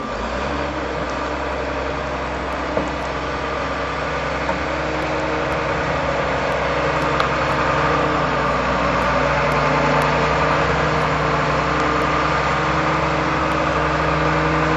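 Engine of a heavy snow-clearing vehicle running steadily, getting gradually louder as it works nearer.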